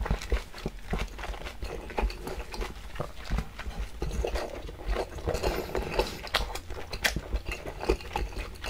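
Close-miked chewing of a mouthful with the lips closed: wet clicking and squelching mouth noises, repeating a few times a second.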